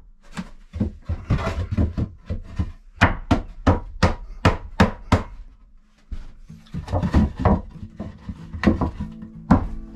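Rough-cut lumber boards knocking and clattering against each other and the wooden cabinet frame as they are set in as loose shelves. A series of sharp wooden knocks, about two a second in the middle, with a short pause before more knocks near the end.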